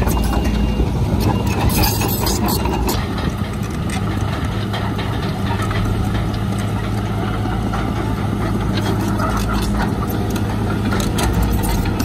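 Komatsu D31PX crawler bulldozer's diesel engine running steadily, with scattered clanks and rattles over it.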